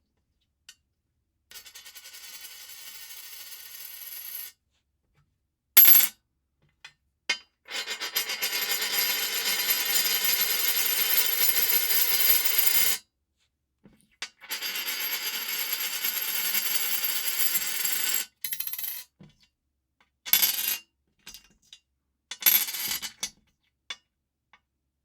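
A coin spinning on glass, several takes in a row: each spin is a fast, ringing metallic rattle lasting a few seconds, the longest about five seconds, that stops abruptly. There are short clicks and shorter spins between them, with a sharp click about six seconds in.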